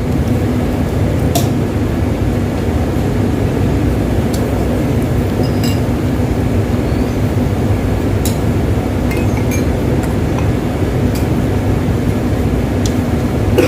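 A steady low rushing background noise with a few light, sharp clinks of tableware scattered through it.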